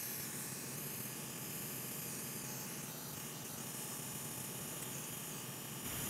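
Bench fume extractor fan running with a steady hiss; a lower hum gets a little louder near the end.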